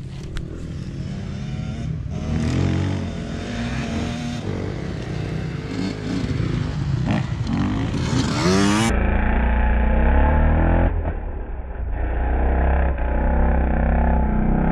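Youth two-stroke motocross bikes running on the track, the engine note rising and falling as a rider revs through the corners close by. A little past halfway the sound turns duller, with a steady low rumble under the engines.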